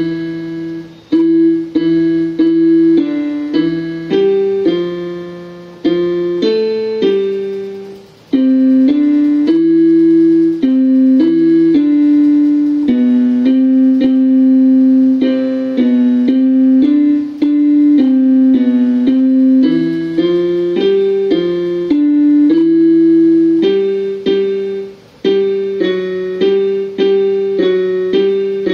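Electronic keyboard played by hand in a piano voice: a simple melody of held notes over lower notes in the left hand, at a steady, unhurried pace.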